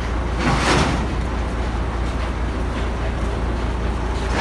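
Crane truck's diesel engine running steadily with a low rumble while it holds an engine on its hook, with a brief rushing hiss about half a second in.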